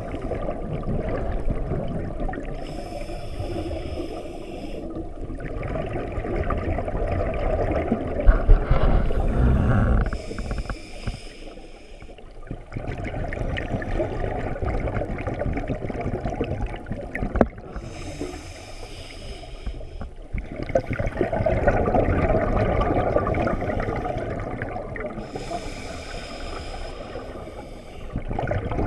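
A scuba diver breathing underwater through a regulator: four hissing inhalations roughly every seven seconds, with gurgling rushes of exhaled bubbles between them.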